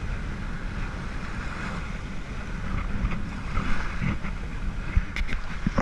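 A boat under way: a steady low rumble of engine and water, with wind buffeting the microphone and a few short knocks near the end.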